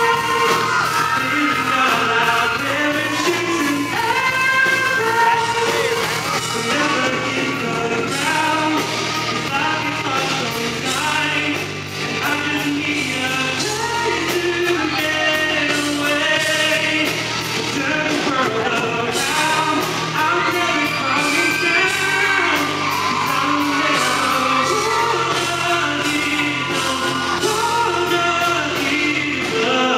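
A male pop singer singing live into a handheld microphone over a full band, with a steady drum beat.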